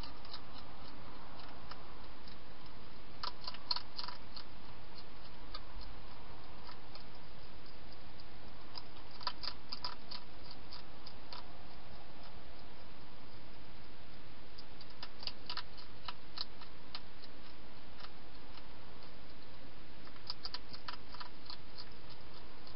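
Wild hedgehog crunching dry food inside a plastic feeding box: short runs of sharp, crisp clicks every five or six seconds over a steady hiss.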